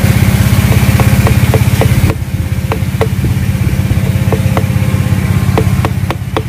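A small engine running steadily, a low pulsing hum that drops in level about two seconds in. Over it, light sharp taps of a machete blade on a bamboo stick being split into strips, about three a second.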